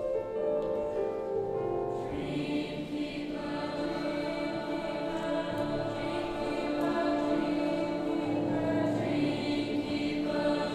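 High school choir singing long held chords, the harmony shifting every few seconds.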